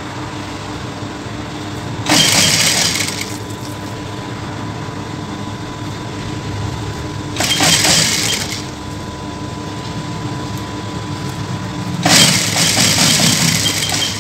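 Electric sewing machine stitching a seam down in three short runs, about two, seven and a half and twelve seconds in, the last running on to the end, over a steady hum.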